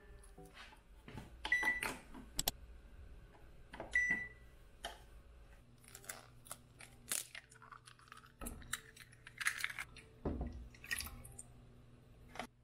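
Scattered light taps and clinks from handling a small stainless steel milk pan as an egg is cracked into it and milk is added, with two brief metallic pings early on.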